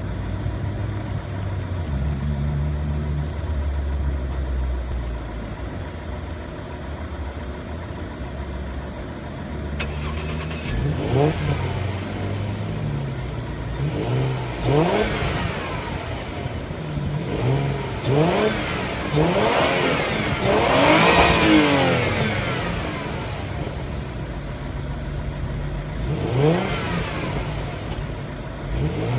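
Jaguar S-Type 2.5-litre V6 running at the exhaust, idling steadily for about ten seconds. It is then blipped repeatedly, each rev rising and falling, with the longest and highest rev about twenty seconds in.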